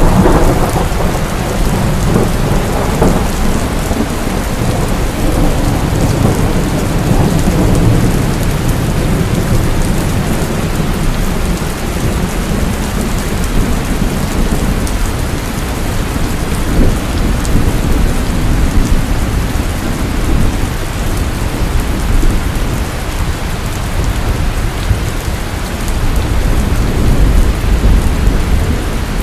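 Heavy rainstorm with steady rain pouring down and low rolling thunder rumbling underneath, the thunder swelling at the start and again near the end.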